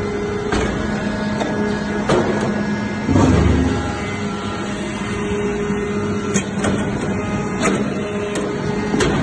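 Hydraulic metal-chip briquetting press running: the steady hum of its hydraulic pump and motor, with scattered clicks and knocks and one louder low thump about three seconds in.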